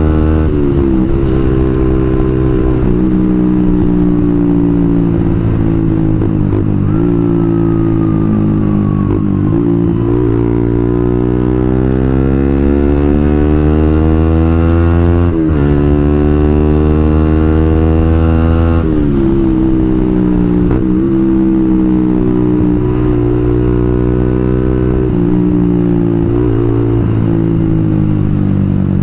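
Suzuki GSX-R150's single-cylinder engine through a WRX New GP K2 aftermarket racing exhaust, being ridden. The engine note goes up and down with the throttle, climbs steadily for several seconds midway, then drops suddenly.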